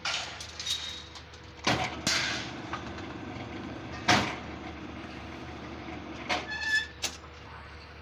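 Electric rebar bending machine's motor and gearbox running steadily as its turntable bends a bundle of steel bars into stirrups, with several sharp metal clanks of the rebar against the machine, the loudest about four seconds in and a few more near the end.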